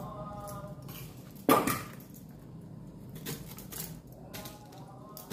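Metal kitchen utensils being handled: one sharp clink that rings briefly about one and a half seconds in, then a few lighter knocks.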